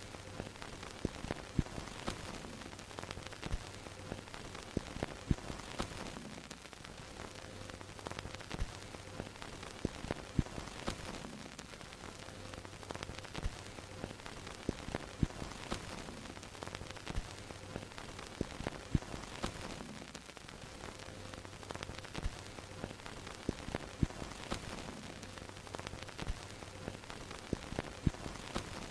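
Vintage film projector sound effect: a steady hiss with irregular crackles and pops like an old worn film soundtrack, over a low projector hum that comes and goes every few seconds.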